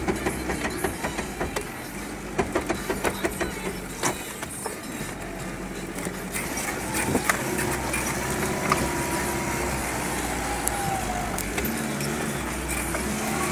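Mitsubishi Pajero's engine running at low revs, heard from inside the cabin, with the body and loose contents knocking and rattling over rutted sand; the rattling is densest about two to three seconds in.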